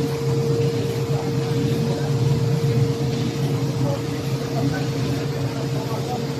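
Machinery of an automatic spray-coating line running steadily: a constant low hum with a steady higher tone over an even hiss.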